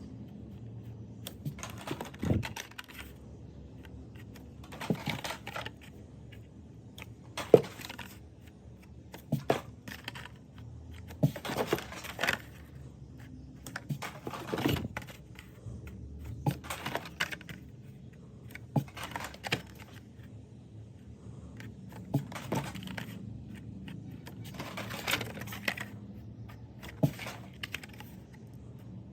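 Hot Wheels die-cast cars in their card-and-plastic blister packs being handled and set down: irregular clicks, knocks and short rustles every second or two, over a low steady hum.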